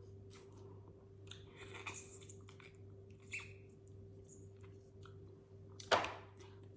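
Close-miked chewing and biting into seafood boil food, with small wet clicks and crunches and one sharp, louder click about six seconds in. A faint steady electrical hum sits underneath.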